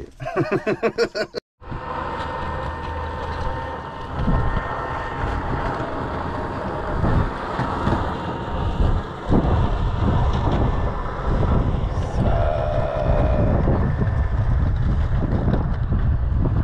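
Wind buffeting the microphone on open lake ice: a steady, fluttering low rumble with a faint steady hum above it.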